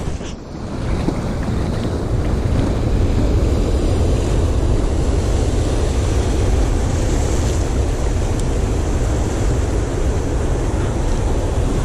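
Surf breaking and washing over a rocky reef, with wind buffeting the microphone and a steady low rumble.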